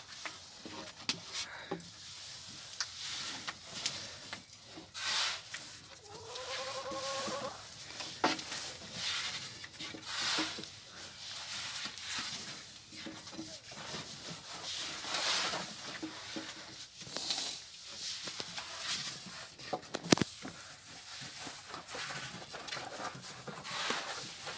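Long wooden rolling pins knocking and rolling on wooden boards as yufka dough is rolled out, with scattered taps and clicks and a sharp knock about twenty seconds in. A goat bleats once, about six seconds in.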